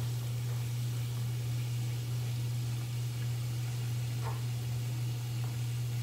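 A steady low hum throughout, over a faint even hiss that fits a bath bomb fizzing as it dissolves in a glass bowl of water. There is one faint brief squeak about four seconds in.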